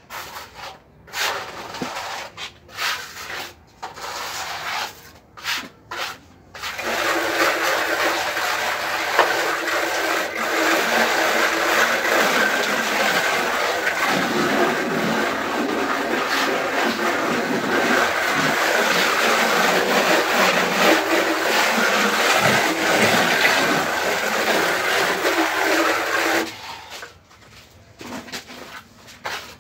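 A loud, steady machine-like noise with a low hum starts about seven seconds in, runs for about twenty seconds and then stops. Before it come a few short, separate noises.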